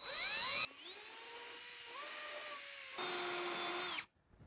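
Cordless drill running a No. 10 tapered bit into a varnished wooden boat deck to bore pilot holes for screws. The motor whine rises as it spins up, shifts pitch a few times, and stops about four seconds in.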